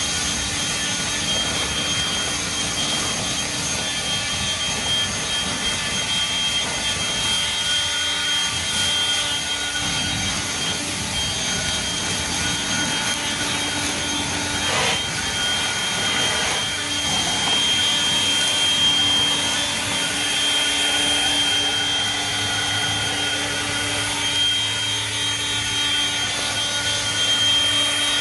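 Hart 40-volt brushless turbo fan leaf blower running continuously, a steady high-pitched whine over the rush of air.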